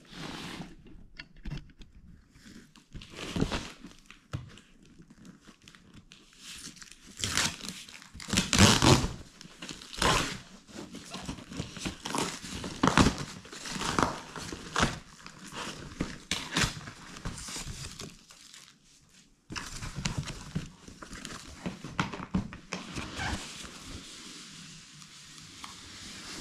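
Packing tape being peeled and torn off a cardboard shipping box, in irregular rasping strips, with cardboard crinkling and scraping.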